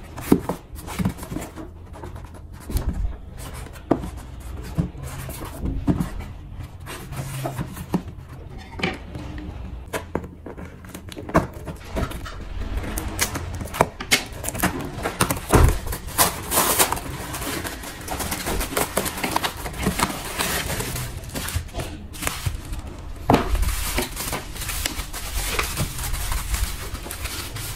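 Handling sounds from unpacking a taped cardboard parcel: scattered knocks and taps on the box at first, then about halfway through a denser run of scissors snipping the packing tape, tape tearing, cardboard flaps and the crinkle of plastic bubble wrap.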